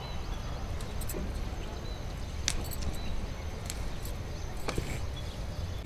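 Green chilli pods snapped off a chilli plant by hand: a few sharp snaps about a second apart amid rustling leaves, over a steady low rumble.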